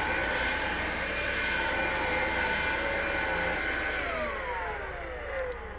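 Hoover Linx cordless stick vacuum's motor running with a steady whine, then about four seconds in it winds down, its pitch falling as it stops: the battery is dead and can no longer keep it running.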